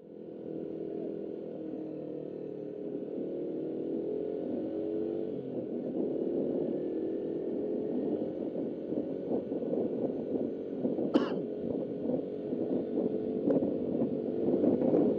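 Suzuki Raider R150's single-cylinder engine running as the motorcycle rides along, its pitch drifting up and down with the throttle, over rushing wind noise on the microphone. A single sharp click comes about eleven seconds in.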